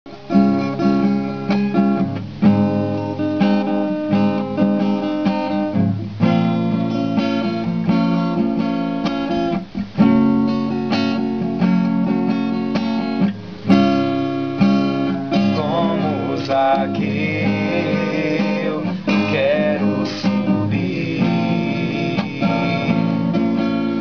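Acoustic guitar strummed in repeated chords as the introduction to a song. In the last third a voice comes in softly over the guitar.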